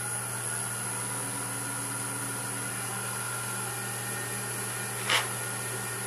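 Wood lathe motor running steadily with a mesquite hollow vessel spinning, a constant hum with several fixed tones. A short burst of noise comes about five seconds in.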